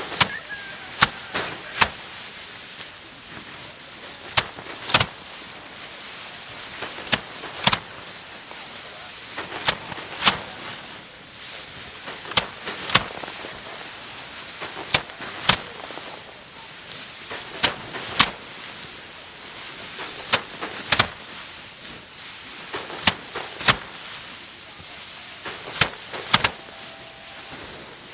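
Handfuls of cut rice paddy slammed down by hand to knock the grain from the stalks: sharp double knocks about half a second apart, repeating in a steady rhythm about every three seconds.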